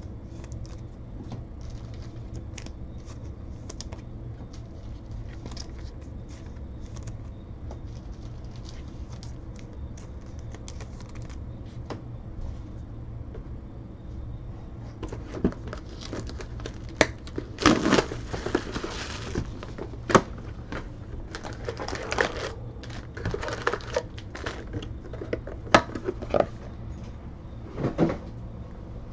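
Light clicking of cards being handled, then from about halfway louder, irregular crinkling of foil Panini Chronicles baseball card pack wrappers being handled, over a steady low hum.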